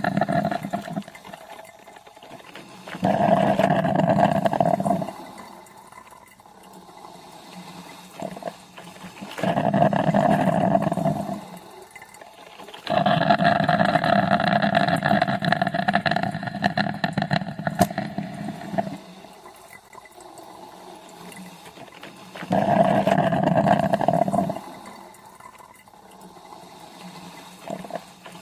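Coffee machine brewing, running in loud spells of about two to six seconds with quieter stretches between: about three seconds in, about nine and a half seconds in, a long spell from about thirteen to nineteen seconds, and again about twenty-two seconds in. Each spell has a steady pitched hum under a watery hiss.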